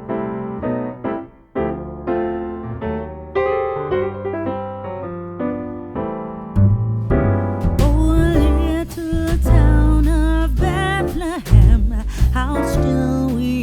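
Background music: a piano intro of separate notes, then from about halfway a full band with heavy bass and a singing voice comes in.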